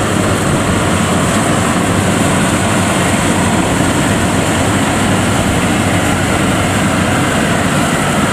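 FMWorld WD102 Pro rice combine harvester running at speed while cutting rice: a loud, steady drone of its engine and harvesting machinery.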